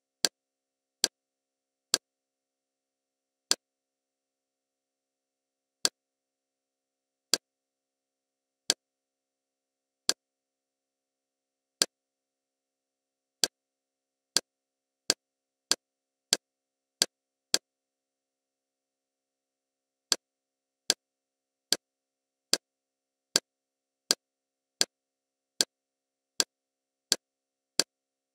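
Kodi menu navigation sound effects: short, sharp interface clicks, one per scroll step through the menu tiles. They come one to two seconds apart at first. From about halfway in they come every half second or so, with a pause of a couple of seconds in between.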